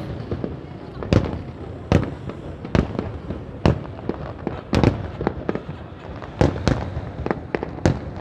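Aerial fireworks shells bursting in a rapid series of sharp booms, about a dozen in a row, with a continuous rumble between them.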